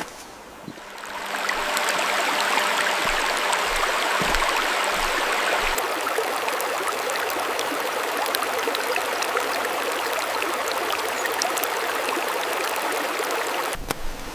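Mountain stream flowing: a steady rush of water that fades in about a second in and cuts off abruptly near the end.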